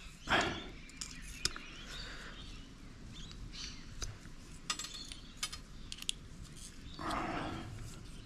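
Side cutters working small steel tabs and screws out of aluminium pieces salvaged from TV circuit boards: a scatter of sharp, light metal clicks and snips. A short louder sound comes near the start and another about seven seconds in.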